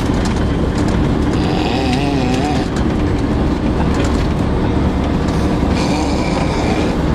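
Steady low rumble of a moving bus heard inside the cabin, with two stretches of higher hissing, about a second and a half in and again near the end.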